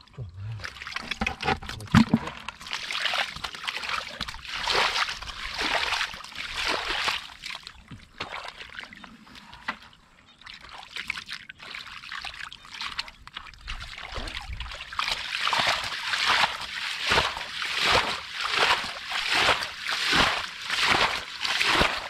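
Shallow muddy water sloshing and splashing as someone works through it. The strokes fall into a fairly even rhythm of about one and a half a second in the second half.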